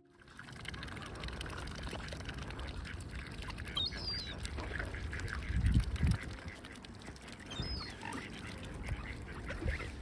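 Mallard ducks feeding in the grass and shallow water at a pond's edge, with soft duck calls and many small clicks of dabbling. Two short high chirps come about four seconds in and again near eight seconds, and a brief low rumble a little before six seconds is the loudest moment.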